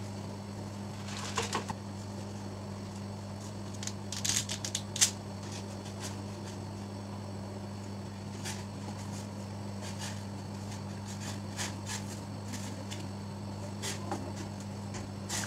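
Pasta boiling in a stainless-steel pot of water, with scattered small clicks and crackles over a steady low hum; a wooden spoon stirs it near the end.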